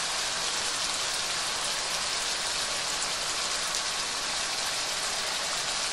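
Diced bacon frying in olive oil in a wok over maximum heat: a steady sizzle with fine crackling, with the range hood fan running underneath.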